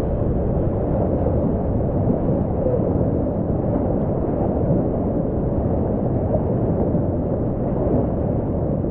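Whitewater rapids rushing steadily around a kayak, a dense, low, muffled rush of churning water.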